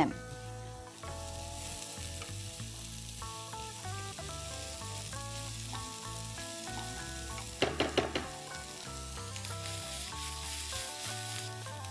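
Chopped raw vegetables sizzling in hot oil and ghee in a nonstick frying pan as they are stirred with a wooden spatula, with a louder scrape about eight seconds in. Soft background music plays under it.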